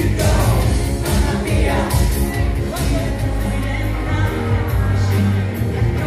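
A live rock band playing: a female lead vocalist singing over electric guitar, sustained bass notes, keyboards and a steady drum beat.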